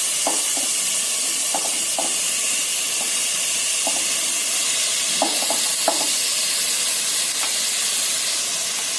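Rice and vegetables frying in hot oil in a pan, a steady sizzle, with short scrapes of a cooking utensil against the pan as the rice is stirred in.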